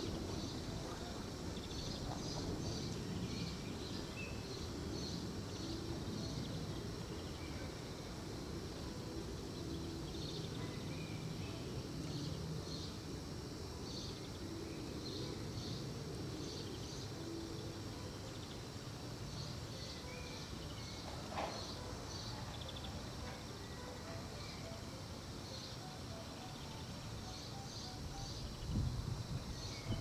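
Outdoor ambience: a steady low rumble of wind on the microphone, with clusters of short high chirps repeating throughout. A faint knock comes about two-thirds of the way through, and a louder dull thump near the end.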